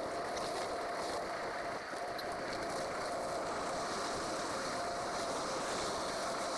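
Steady rush of wind and rolling tyre noise from a bicycle in motion, with a faint steady hum.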